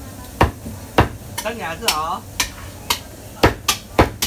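Butcher's cleaver chopping goat meat on a thick wooden chopping block: about nine sharp chops at an uneven pace, roughly two a second.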